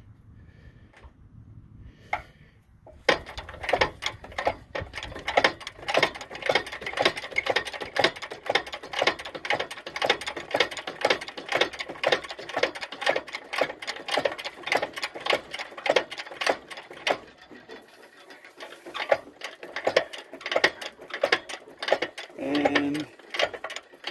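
Homemade crane's hand-worked lifting mechanism clicking fast and evenly, several clicks a second, starting about three seconds in as the load is raised.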